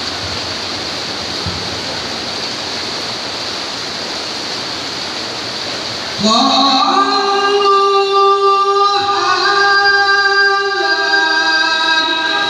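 Heavy rain pouring steadily; about six seconds in, a voice begins a Qur'an recitation (tilawah) over it, in long held melodic notes that step up and down in pitch.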